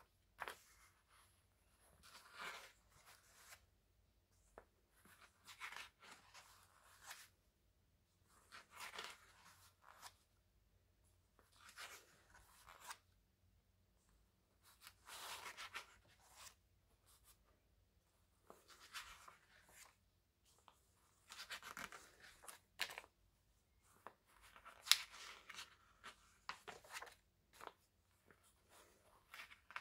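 Pages of a paper programme booklet being turned and smoothed flat by hand: a short papery rustle about every two to three seconds, about ten in all.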